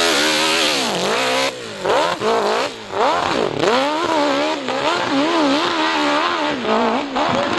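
500cc-class dirt bike engine revving hard through a launch and a steep hill climb, its pitch rising and falling again and again as the throttle is worked. A loud rushing noise rides on the engine for the first second and a half, and the engine dips briefly about a second and a half and three seconds in.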